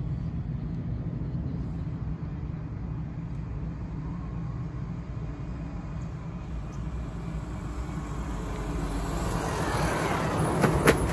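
A heavy truck approaches and passes close by on asphalt. Its tyre and engine noise swells over several seconds above a steady low traffic rumble, then two sharp cracks come close together as the wheels go by.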